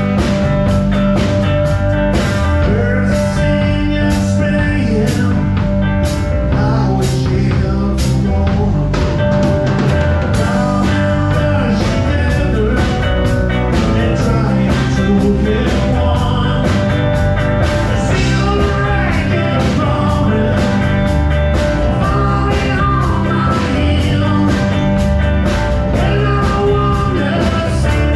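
Live rock band playing: electric guitar, bass guitar and drum kit keeping a steady beat, with a voice singing in places.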